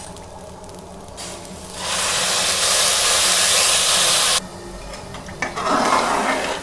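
Water poured into a hot pressure cooker of rice fried in ghee: a loud hiss and sizzle that builds for about a second and cuts off abruptly near the middle. A ladle then sloshes through the watery rice near the end.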